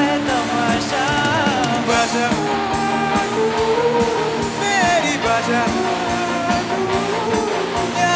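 Live rock band of electric guitar, bass guitar, keyboard and drum kit playing an upbeat song with a choir and soloists singing; a melody bends up and down over a steady drum beat.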